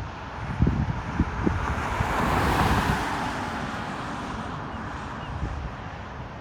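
Wind buffeting the microphone in uneven low gusts. A broad rushing noise swells up about two seconds in and fades slowly over the next few seconds.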